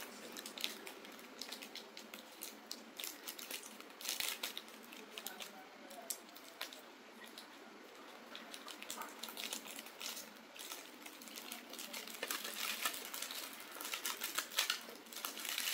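Plastic cookie-packet wrapper crinkling as it is handled and cut open with scissors, in irregular bursts of crackles that are busiest near the start and toward the end.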